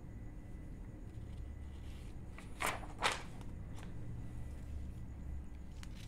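Paper rustling as a written sheet is turned over on a ring-bound pad: two short swishes about half a second apart, a fainter one just after, over a steady low room hum.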